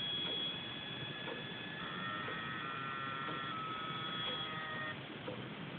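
Corsair VX 550W power supply giving off thin, high-pitched electronic whining tones, the noise it makes when the computer is put to sleep or switched off. Extra tones join about two seconds in and cut out about five seconds in, with faint ticks about once a second.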